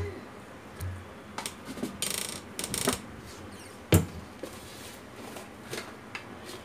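Kitchen handling clatter as tea is made: containers and utensils are picked up and moved, with scattered light clicks, two short rasps around two to three seconds in, and a sharp knock about four seconds in.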